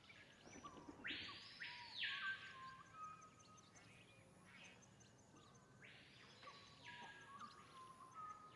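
Faint birdsong: scattered chirps and short whistled notes, with two soft hissing swishes, about a second in and again about six seconds in.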